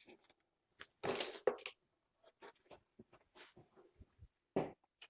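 Handling noises of someone searching among tools and parts: short rustles, scrapes and clicks, with a louder rustling scrape about a second in and a sharper knock near the end.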